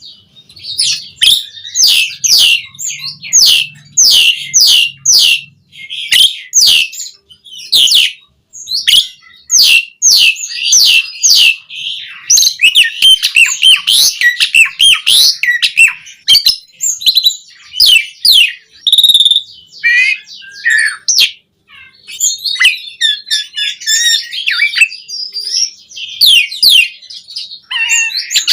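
Asian pied starling (jalak suren) singing loudly: a run of sharp, repeated whistled notes, several a second, giving way about halfway through to a faster, varied chattering warble.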